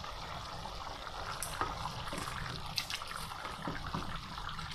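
Rice and vegetables bubbling at a boil in a pot of water, with scattered small pops. A wooden spoon stirs through the pot near the end.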